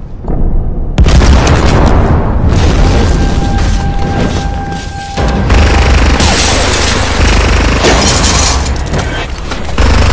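Film sound effects of hand grenades exploding: a sudden deep boom about a second in, then a long rumbling blast with another surge later on and a sharp hit near the end, over a music score. A steady high tone runs for a couple of seconds after the first blast.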